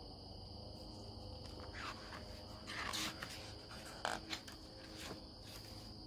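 Crickets chirping steadily in a constant high trill, with the paper rustle of a book page being turned about three seconds in.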